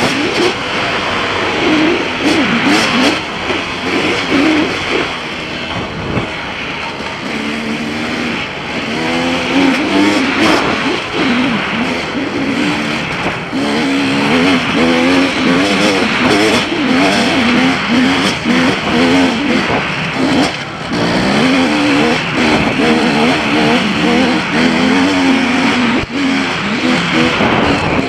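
Two-stroke KTM enduro dirt bike ridden hard along a rocky trail. The engine revs up and down constantly as the throttle opens and closes, over a steady rushing noise.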